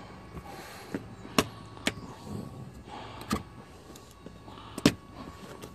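A handful of sharp clicks and taps from hands handling a plastic part and its wiring against the underside of a car hood, the loudest a little before the end, over a low steady hum.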